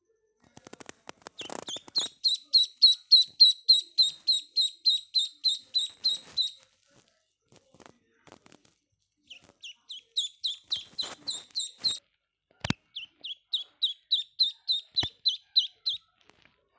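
Duckling peeping: rapid, high-pitched peeps about four a second, in three runs with short breaks between them. A few sharp clicks or taps are heard among them.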